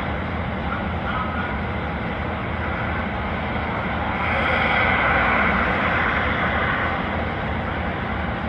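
Steady rumble and hiss of a vehicle heard from inside a stationary patrol car, swelling louder for a few seconds about halfway through.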